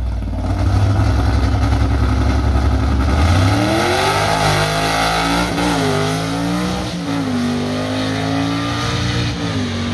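Ford FE V8 drag car launching from the starting line: a steady low engine note gives way about three seconds in to the engine climbing in pitch under full acceleration, dropping back at three gear shifts.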